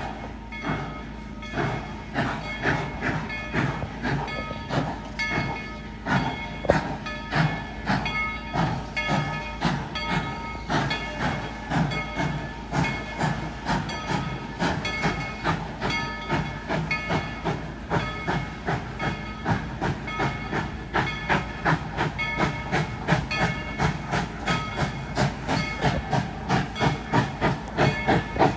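Steam locomotive running with a rhythmic chuffing beat over steady steam hiss, the beat quickening slightly toward the end.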